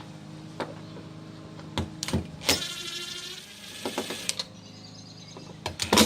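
Installation handling noises: a series of sharp clicks and knocks, with a brief whirring whine from a small motor about two and a half seconds in and a fainter whir a couple of seconds later. The loudest knock comes right at the end.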